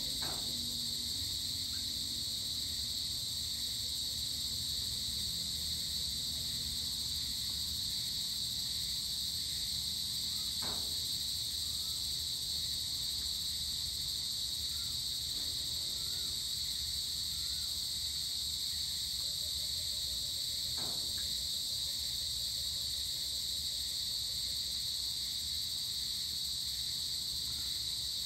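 Evening chorus of crickets and other insects, a steady high-pitched trilling, over a faint low rumble, with a few short faint chirps scattered through it.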